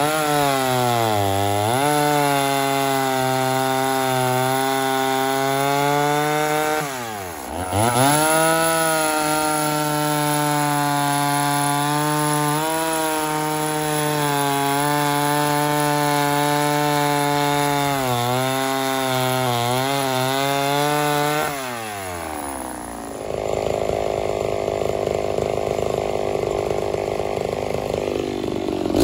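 Lightly ported Homelite Super XL Auto two-stroke chainsaw with a bow bar, cutting a log at full throttle. Its pitch dips sharply and recovers twice, about a second in and again about seven seconds in, then holds steady under load before falling off about three-quarters of the way through to run at low speed.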